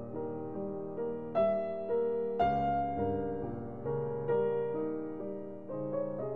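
Slow, gentle piano music: single notes and chords struck roughly every half second to a second, each ringing on and fading.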